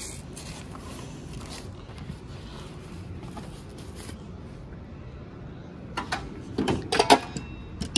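A Snap-on Epiq tool box drawer sliding on its runners, with a burst of clicks and rattling tools about six to seven seconds in. Before that come faint handling clicks from tools in the drawer.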